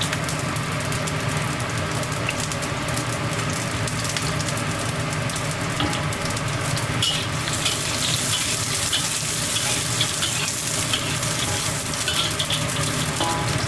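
Food sizzling as it fries in a hot pan, with a few light clicks of stirring; the crackle grows denser about halfway through.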